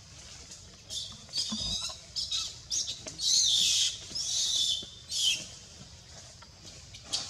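A run of high-pitched squealing animal calls: several short ones from about a second in, the loudest and longest about three seconds in, fading out by about five and a half seconds.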